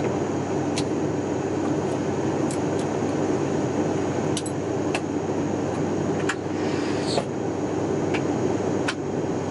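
Steady cabin noise of an airliner in flight, the engines and rushing air heard from inside the cabin as an even drone with a low hum. A few faint clicks and ticks sound here and there.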